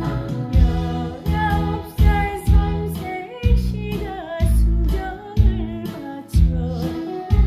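Korean trot song: a singer holding a wavering vocal line over a backing track with a heavy, steady beat about once a second.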